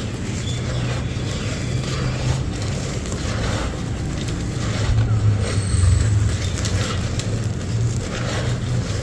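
Dry sand-cement crumbles being crushed and rubbed between bare hands in a terracotta clay pot: a continuous gritty crunching and crackling of breaking lumps and trickling grains. A low rumble runs underneath, loudest about five to six seconds in.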